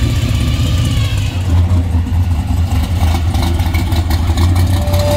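Loud, deep exhaust rumble of modified drag-style muscle cars rolling slowly past one after another, with a choppy, pulsing note.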